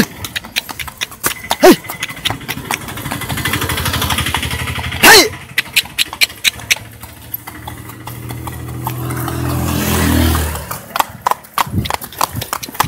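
A horse's shod hooves clip-clopping on a wet asphalt road as it walks and trots. A few short loud calls, each falling in pitch, come near the start, about 2 s in and about 5 s in. A motor vehicle's engine builds up, rises in pitch and stops about 10.5 s in.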